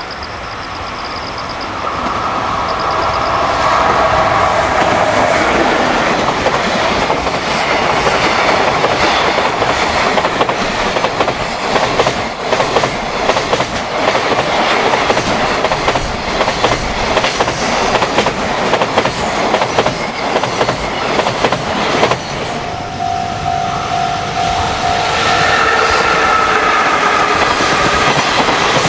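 A train running past close by, its wheels clicking over the rail joints. The sound builds over the first few seconds and stays loud. A short steady tone sounds late in the passage.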